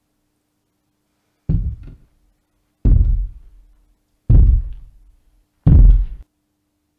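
Four heavy, booming hits, evenly spaced about a second and a half apart, each dying away quickly; the last two are the loudest.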